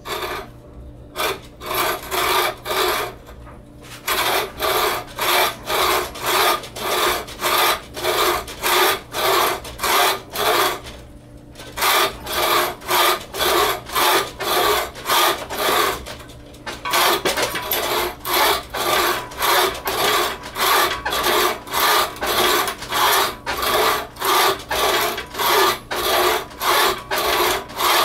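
Homemade wooden bucksaw cutting through a branch: rhythmic rasping saw strokes, about two or three a second, broken by a few short pauses.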